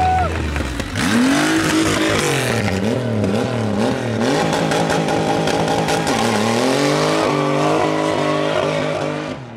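Triumph Rocket III's 2,300 cc three-cylinder engine being revved hard, its pitch swinging up and down several times, then climbing again in steps before it stops sharply near the end.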